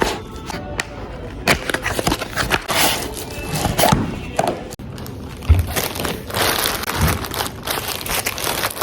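Crinkling and rustling of a parcel's plastic packaging being handled and torn open, with scattered knocks and thuds.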